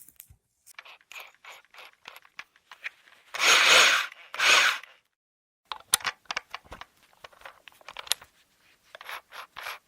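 Car floor covering and insulation being handled by hand, crackling and rustling, with two loud rasping tears about three and a half and four and a half seconds in.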